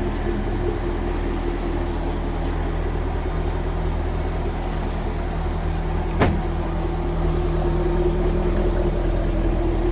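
Jaguar F-Type R's supercharged 5.0-litre V8 idling steadily, with one sharp click about six seconds in; the engine note grows slightly louder near the end.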